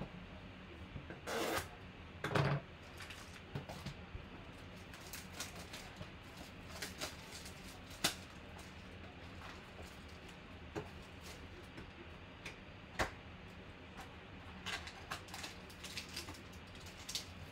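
Clear plastic shrink-wrap being torn off a trading-card box and crinkled by hand: two short rips early on, then scattered sharp crackles and taps.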